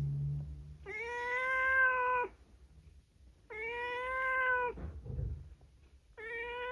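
Pet cat meowing as a morning wake-up call: three long, drawn-out meows a second or so apart, each holding a steady pitch.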